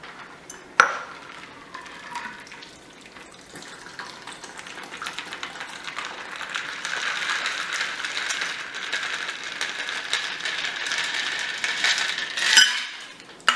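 Ice and liquid in a cocktail shaker as a dirty martini is made: a sharp knock about a second in, then a long stretch of sloshing liquid and ice that grows louder, ending with a loud clink near the end.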